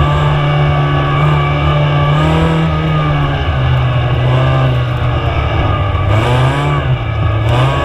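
Supercharged four-cylinder engine of an Ariel Atom 2 heard from on board, pulling hard through an autocross course. Its pitch drops and climbs as the driver lifts and gets back on the throttle, with a sharp drop and climb about six seconds in.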